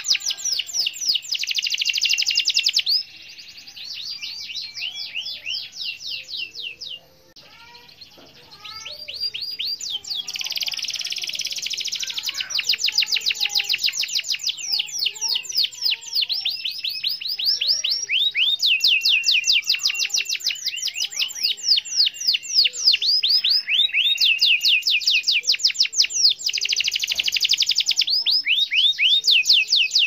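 Domestic canary singing long rolling trills: fast runs of repeated high notes, switching to a new note type every second or two. The song turns quieter a few seconds in, nearly pausing around seven seconds, then picks up loudly again and carries on.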